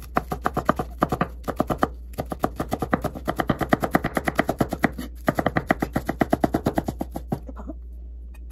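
Kitchen knife chopping quickly on a cutting board, about six or seven even strokes a second, in three runs with short pauses, stopping about a second before the end.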